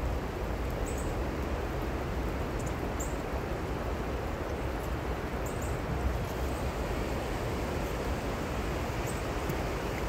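Small songbird giving short, sharp, high chip calls every few seconds over a steady low rushing background.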